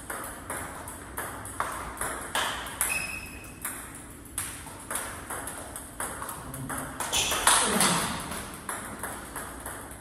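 Table tennis ball in a rally, clicking sharply off the bats and the table about two to three times a second. About seven and a half seconds in there is a louder, brief voice-like sound.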